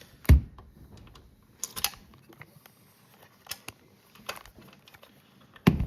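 Handling of 3D printer parts and hardware during assembly: a heavy thump just after the start, a few scattered sharp clicks, and another loud knock near the end.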